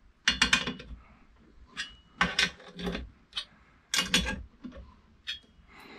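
Hand socket ratchet clicking in short runs, about four of them, as nuts are tightened down onto the stainless steel plates of a motor-mount frame.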